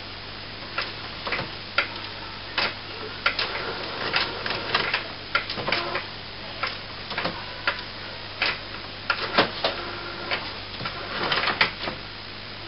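HP Photosmart B109a inkjet printer running its power-on start-up routine: irregular clicks, clunks and short whirs of the print carriage and feed mechanism, starting about a second in and stopping near the end, as the printer readies itself to print.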